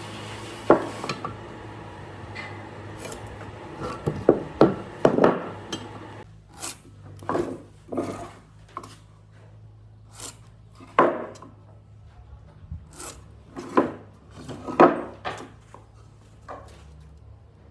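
Hand-working wood: irregular rubbing and rasping strokes against wood, with a few sharp knocks.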